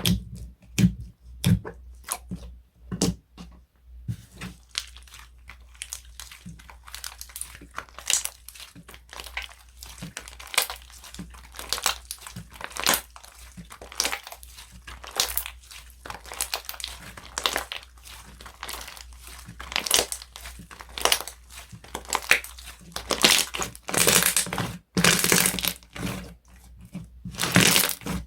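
Slime being squeezed, stretched and poked by hand, giving a run of sharp crackling and crunching pops. The crackles grow denser and louder about twenty-three seconds in and again near the end.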